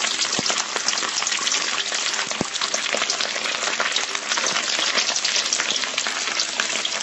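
Hot oil sizzling and crackling steadily as balls of boiled egg coated in ground pork deep-fry in a pan, with a few sharper pops.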